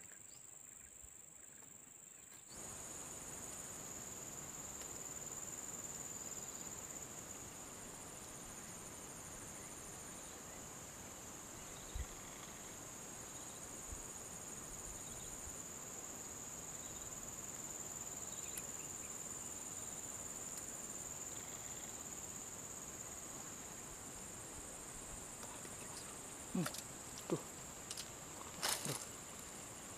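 A steady, high-pitched insect chorus droning over faint swamp ambience, starting about two and a half seconds in. Near the end come a few short sharp clicks.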